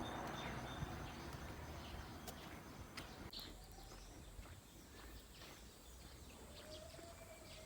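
Faint rural ambience: a steady high insect drone with scattered small bird chirps, over a wash of background noise that fades during the first few seconds.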